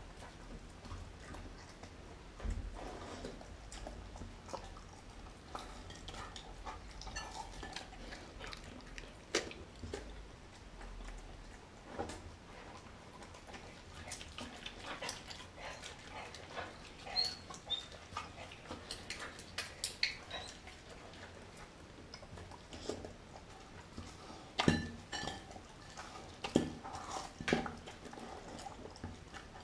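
German Shepherd–Chow Chow mix dog eating raw meat from a glass bowl: irregular chewing with scattered clicks and clinks of the bowl. The loudest knocks come a few seconds before the end.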